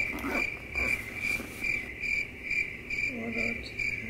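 A cricket chirping steadily, an even run of short high-pitched chirps about two to three a second.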